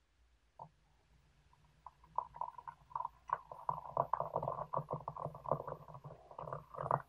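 A stream of water poured into a glass teapot onto loose tea leaves, splashing and gurgling as the pot fills. It starts about two seconds in and stops abruptly just before the end.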